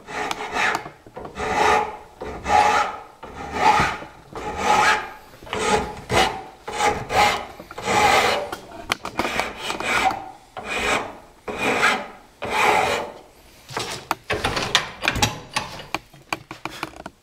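Hand file rasping back and forth on a take-down longbow's tenon, about one and a half strokes a second, with quicker, shorter strokes near the end. The filing takes out the tenon's taper so that back and belly come nearly parallel.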